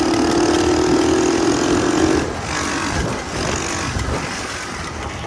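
Mini Trail 90 mini bike's engine running hard at a steady high pitch for about two seconds, then easing off, with wind rushing over the microphone.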